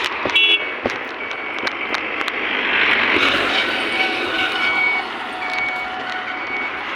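A vehicle's reversing beeper sounding a short high beep about once a second over steady vehicle and traffic noise.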